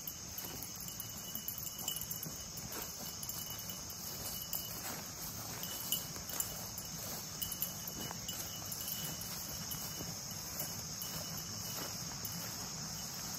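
Steady high-pitched chorus of insects in late-summer vegetation, with faint rustling of movement through grass.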